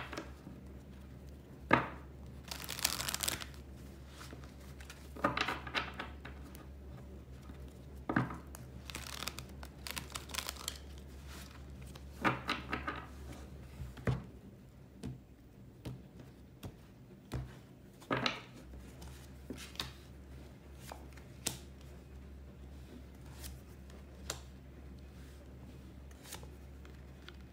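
A deck of tarot cards being shuffled and handled: a series of short papery rustles, with sharp taps as cards are set down on a wooden table. A faint steady low hum lies underneath.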